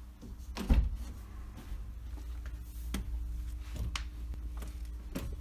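A heavy thump about a second in, then a few sharp clicks and knocks over a low steady hum: the brake pedal being pressed several times to push the rear caliper's piston back out against the pads after the caliper was refitted.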